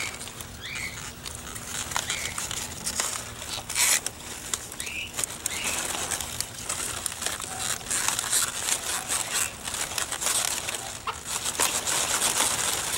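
Large cauliflower leaves rustling and crackling as hands push them aside and work around the head, with sharp snaps now and then. A few faint chicken clucks.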